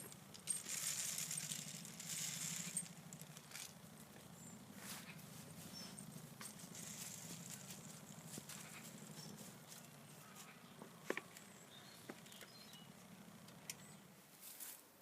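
Rustling and light clicking of a bird feeder being handled and filled with seed, heaviest in the first few seconds, over a steady low hum that stops near the end.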